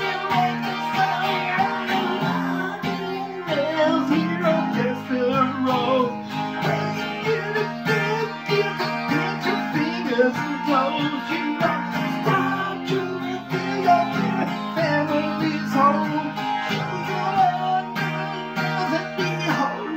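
Twelve-string acoustic guitar strummed steadily, playing chords through an instrumental passage of a song.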